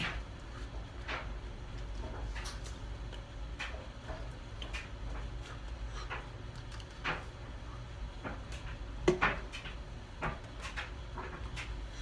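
Scattered soft clicks and taps from hands striking and brushing against each other and the shirt during sign language, the sharpest about nine seconds in, over a steady low hum.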